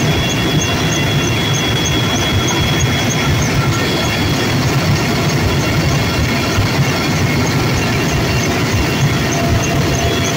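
Helicopter cabin noise in flight: the engines, transmission and rotor run loudly and steadily, with several steady high whining tones over a rushing noise. It is heard from inside the cabin beside an open door.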